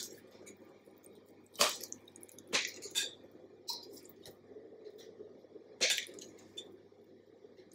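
Metal offset spatula scraping and clinking against a glass bowl while scooping thick chocolate frosting, with four or five sharp clinks and soft squishing of the frosting in between.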